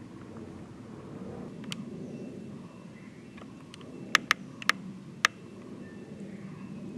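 Low, steady background noise, with four sharp clicks in quick succession a little past the middle.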